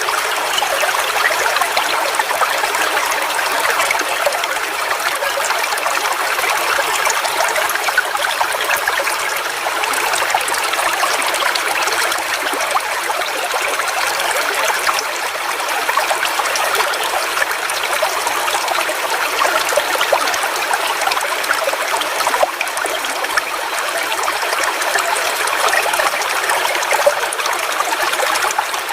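Forest waterfall: a steady rush of falling and splashing water, a dense even hiss with little low rumble.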